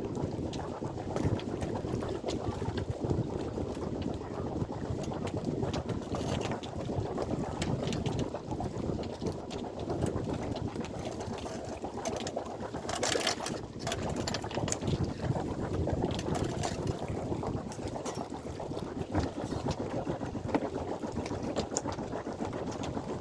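Sailboat under way: a steady rush of water and wind noise, with scattered small knocks and a brief louder burst of noise about 13 seconds in.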